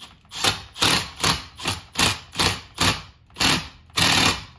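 Cordless power driver run on a valve spring compressor in short trigger bursts, about two to three a second, slowly pressing a valve spring down on a 6.1 Hemi cylinder head so the keepers can come out.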